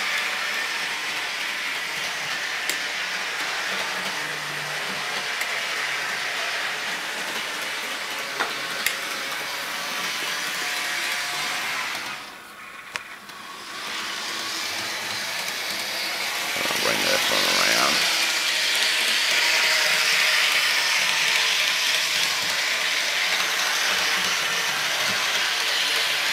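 Model train diesel locomotive running on the track, its small motor and gears making a steady whir that drops out for a moment about halfway through and comes back louder. The owner thinks the CSX locomotive needs lubricating.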